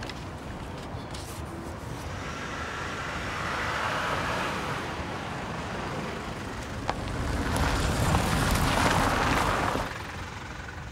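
Road traffic: steady road noise with two vehicles passing, each swelling and fading, the second louder.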